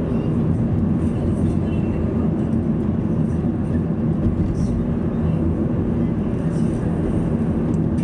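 Steady drone of a car driving along a paved street, heard from inside the cabin: engine and tyre road noise, even in level throughout.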